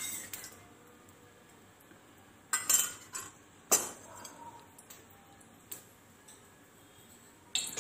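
A few short, sharp clinks and knocks of metal kitchen utensils, about five in all and the loudest two near the middle, over faint room noise.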